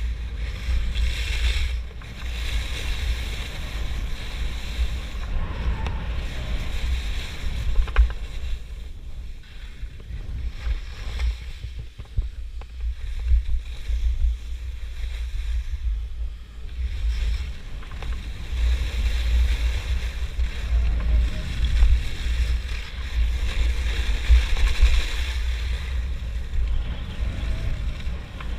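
Wind buffeting the microphone of a skier moving fast downhill, a constant low rumble, with skis hissing and scraping over groomed snow in long swells as they turn.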